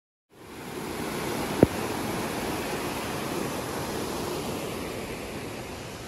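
Waterfall rushing over rocks, a steady, even roar of falling water that cuts in abruptly just after the start. A single sharp knock about a second and a half in.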